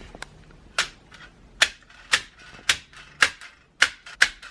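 A makeshift switch being pressed and released over and over: sharp hard clicks, about two a second, about eight in all.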